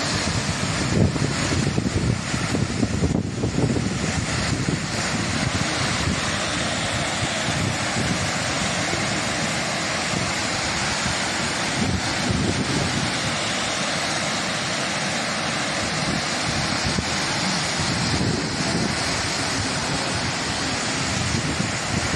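Water pouring over the full length of a dam's spillway crest as a steady rushing wash, the reservoir full and overflowing after flood inflow. Wind buffets the microphone, most in the first few seconds.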